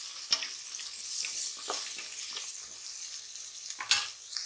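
Chopped onion, green chillies and tomato sizzling in hot oil in a pressure cooker, with a steady high hiss. A wooden spatula stirring them scrapes and knocks against the metal pan a few times.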